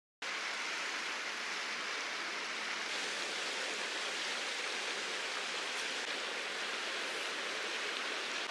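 Mountain stream water rushing, a steady even hiss that cuts in abruptly just after the start.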